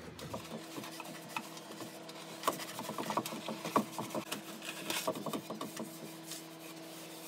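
Small taps, rubs and paper rustles as self-adhesive black lining is pressed into a wooden box and its white backing paper is handled, over a faint steady hum.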